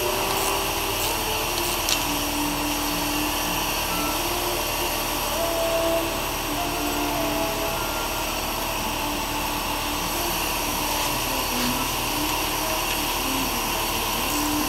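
A steady mechanical whirring hum from a running machine, such as a shop air compressor or vacuum, with a light metallic click about two seconds in.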